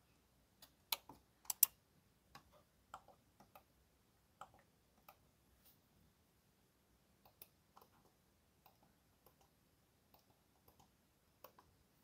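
Middle button (scroll-wheel click) of a Logitech computer mouse being pressed over and over: short, faint, sharp clicks at an uneven pace, with a few louder ones in the first two seconds.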